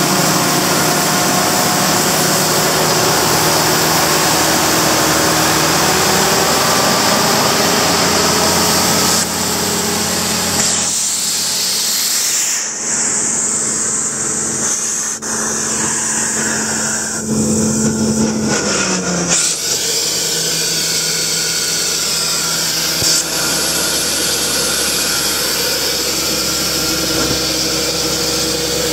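Cummins QSL9 six-cylinder diesel running and driving a Sullivan 900CH portable air compressor: a steady loud drone with a strong hiss over it. For several seconds in the middle the hiss thins out, and a low tone falls in pitch before the hiss comes back.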